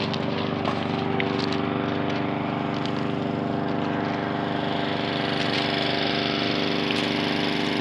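An engine running steadily at an even speed, a constant hum.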